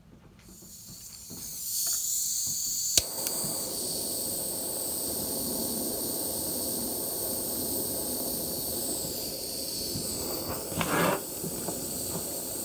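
Gas soldering torch: the gas hisses in over the first two seconds, a sharp click comes about three seconds in as it lights, and the flame then burns with a steady hiss and rush. A brief louder rush near the end.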